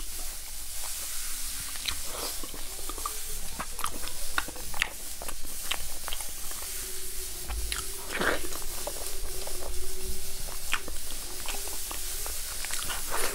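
Close-up eating sounds of someone biting and chewing spicy braised pork off the bone: many small smacks and clicks of the mouth over a steady hiss.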